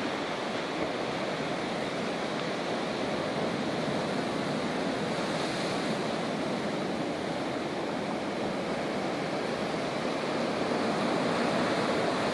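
Steady rush of choppy, foaming sea water.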